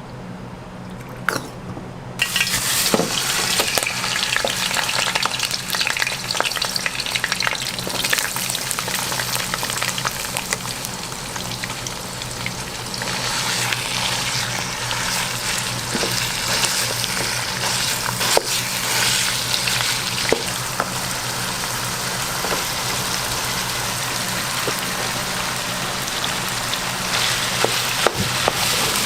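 Food frying on a hot pan, starting with a sudden loud sizzle about two seconds in and sizzling steadily while it is stirred, with scattered clicks of a metal spatula. A steady low hum runs underneath.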